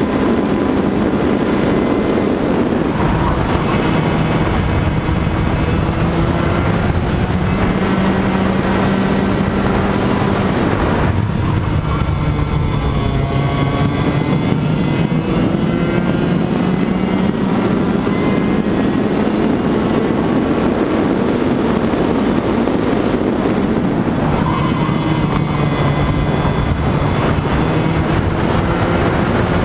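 Racing kart's two-stroke engine at full race revs, heard from onboard. Its pitch climbs along the straights, drops briefly under braking about eleven seconds in and again around twenty-three seconds, then climbs back up each time.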